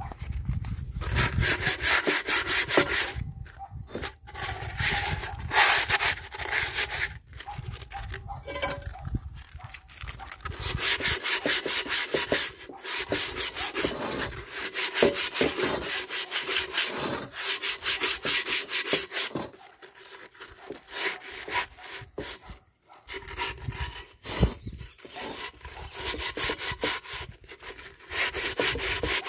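Sandpaper rubbed by hand against the rusty inside of an old cast-iron pot, quick back-and-forth scraping strokes in several bouts with short pauses between them: rust being sanded off the pot before it is seasoned.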